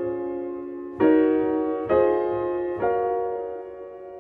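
Background music: piano chords, struck three times about a second apart, each left to ring and fade.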